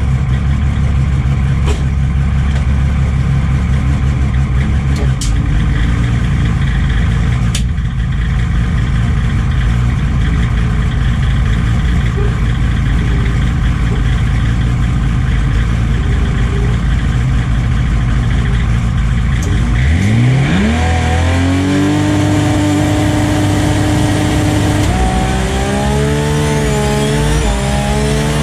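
Turbocharged Toyota 2JZ inline-six in a drag-race Celica, heard from inside the car. It idles with a rough, lumpy note for about twenty seconds, then revs up quickly and holds high. Near the end the revs waver up and down.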